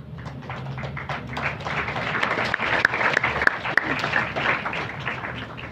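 Audience applauding, swelling to a peak midway and then dying away.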